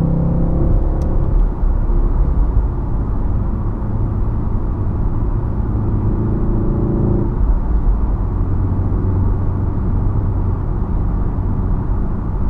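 Mk7 VW Golf R's turbocharged 2.0-litre four-cylinder engine and exhaust running steadily, with a shift in engine note about seven seconds in.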